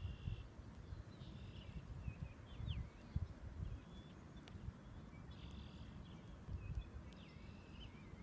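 Short bird calls repeating every second or so, each about half a second long with a sliding pitch, over wind gusting on the microphone.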